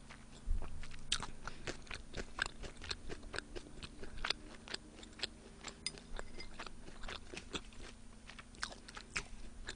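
Close-miked chewing and crunching of boneless fried chicken with sliced onion: a steady run of small sharp crunches and mouth clicks, several a second.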